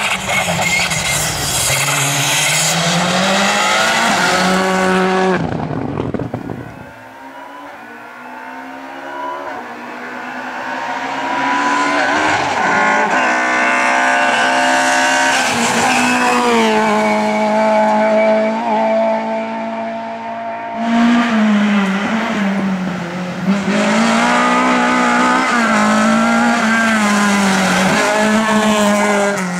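Rally car engines at full throttle, pitch rising and dropping with revving and gear changes. The sound falls away about six seconds in, then builds again as another run comes close and stays loud to the end.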